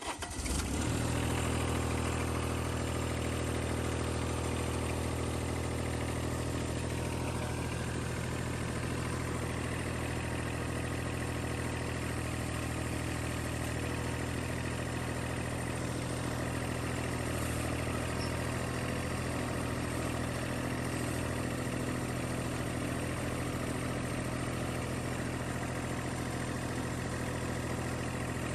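Ventrac 4231's turbo diesel engine firing up and settling at once into a steady idle.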